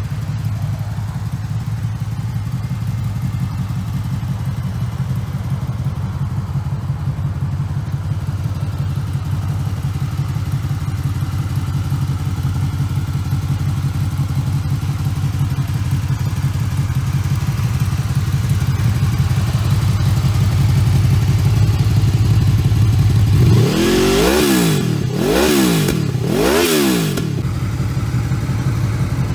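Honda VFR800F (RC79)'s V4 engine idling steadily, then revved three times in quick succession near the end before dropping back to idle.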